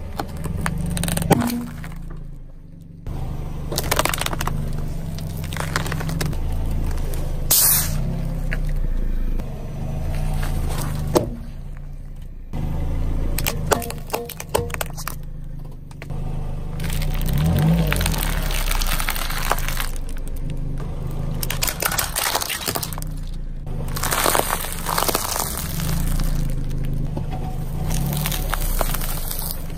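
A car tyre rolling over a series of small objects and crushing them, with several sharp cracks and crunches, among them a small glass jar and a pile of puffed corn snacks. A steady low hum runs underneath.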